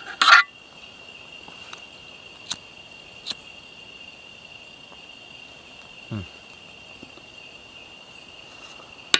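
Steady insect chorus of crickets and cicadas trilling. A short sharp rustle or click sounds just after the start, a few faint clicks follow, and a brief low falling sound comes about six seconds in.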